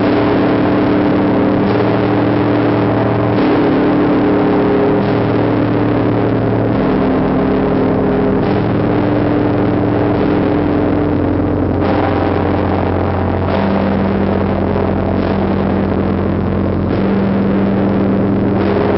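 The Tsar Bell, the great Russian Orthodox church bell of the Trinity-Sergius Lavra bell tower, being rung: a strike about every second and a half to two seconds, its deep tones ringing on and overlapping between strikes.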